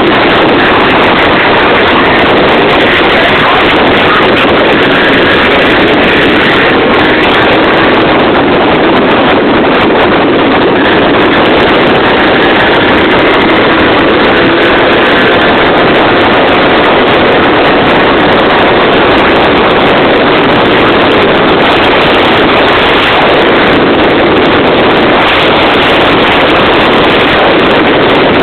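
Motor scooter ridden along a road: its engine runs under loud, steady wind buffeting on the microphone, with no changes in pace.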